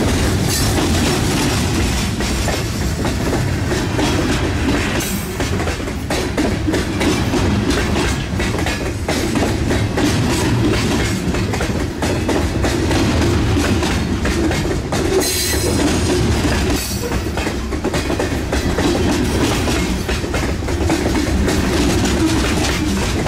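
HO scale model freight cars rolling past on model track: a steady rumble with rapid clicking of the wheels over the rail joints, and a few brief high-pitched sounds about 5, 15 and 17 seconds in.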